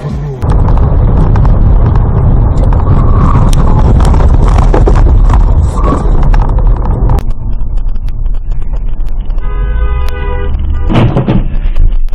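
Loud road and engine rumble inside a moving car, recorded by a dashcam. It gets quieter about seven seconds in. A car horn then sounds one steady note for about a second and a half, followed by a short loud noise.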